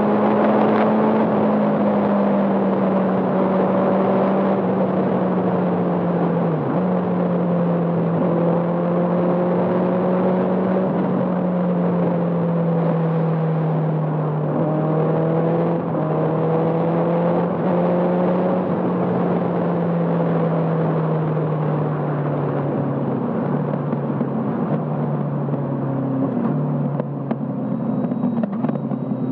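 Benelli TNT 600i inline-four engine through an IXIL full-system exhaust, heard from the moving bike: a steady engine note that slowly sinks in pitch, broken a few times by short dips and jumps, with quick rises and falls in revs near the end.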